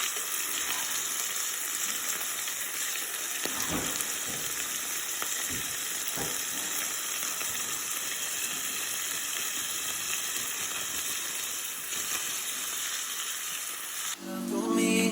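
Food frying in hot oil in a pan: a steady sizzle, with a few faint knocks about four and six seconds in.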